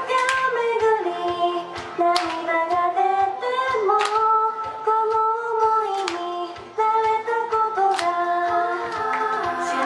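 Female idol group singing a pop song in unison into handheld microphones over backing music, with long held notes and sharp drum hits about every two seconds.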